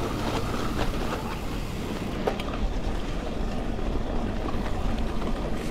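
Steady road noise and low engine hum of a vehicle being driven, with some wind noise.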